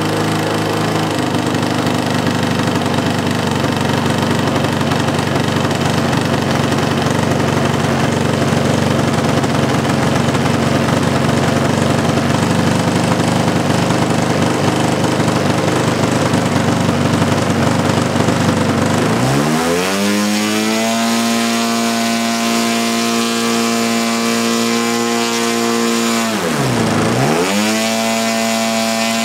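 Zenoah Titan 62 two-stroke gasoline engine of a giant-scale model plane on a ground test run, fitted with a Chinese ignition. It runs steadily at low throttle, then about two-thirds of the way through it revs up quickly to a high steady pitch. Near the end the throttle is briefly chopped and opened again, so the pitch dips sharply and climbs back.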